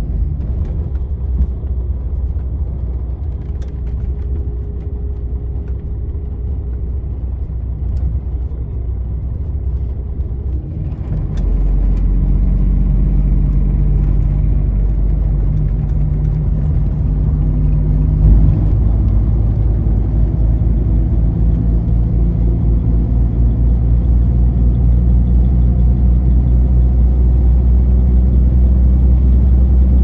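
Steady low rumble of a running vehicle, growing louder about eleven seconds in.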